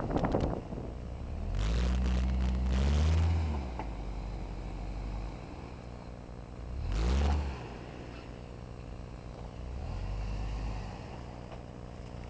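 Hummer H3 engine through its Magnaflow exhaust, revving in short throttle bursts while the truck crawls out over dirt and rock. It rises in pitch about two seconds in, again about seven seconds in and more gently near the end, and runs low between the bursts.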